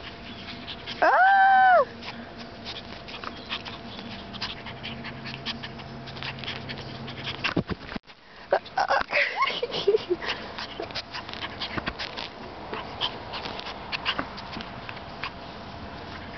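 Puppy giving one loud high whine that rises and falls about a second in, then a few shorter, falling whimpers around the middle. Rustling and clicking of fur rubbing against the microphone runs underneath.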